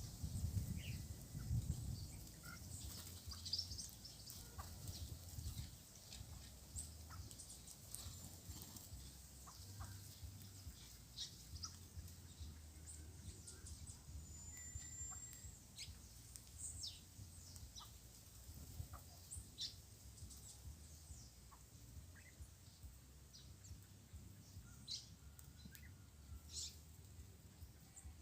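Small songbirds, red-cowled cardinals among them, giving scattered short, high chirps and call notes, with a few brief whistled notes. A faint low rumble lies underneath, strongest in the first couple of seconds.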